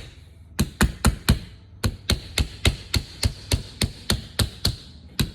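Hammer tapping a collar ring onto the plug end of a 50 amp shore power cord: a quick run of light taps, about four a second, with a pause at the start and a brief break a little after a second in.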